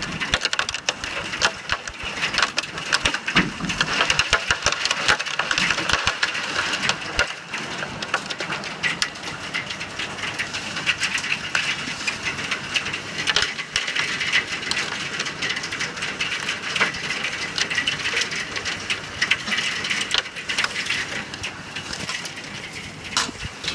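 Hailstorm: hailstones pelting down in a dense, continuous clatter of sharp impacts over the hiss of heavy rain, easing slightly after about eight seconds.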